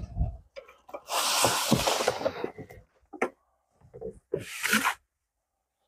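Cardboard box and plastic packaging rustling and scraping as a new lawnmower is unpacked, in several bursts, the longest about a second in, with a sharp click around three seconds.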